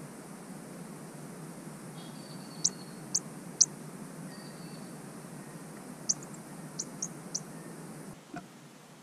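Superb fairy-wren giving short, sharp high chirps over a steady hiss: three quick ones from about two and a half to three and a half seconds in, then four more from about six to seven and a half seconds.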